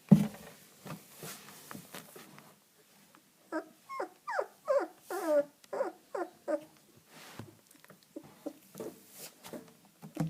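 Young puppy crying: a run of about ten short, high whimpering cries, each sliding down in pitch, starting about three and a half seconds in, then softer short cries near the end. A loud bump at the very start is the loudest sound.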